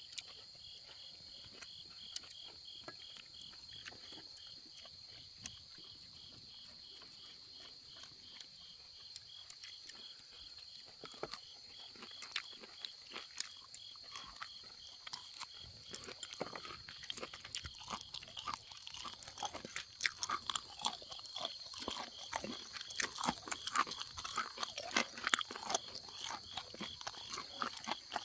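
Night insects chirring, a steady high-pitched drone with a regular pulsing chirp about three times a second. From about ten seconds in, more and more irregular clicks and crunchy crackles come through, busiest near the end.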